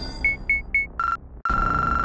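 Electronic beeping: three quick high beeps, then a short lower beep and a longer held beep at that lower pitch, over low background music.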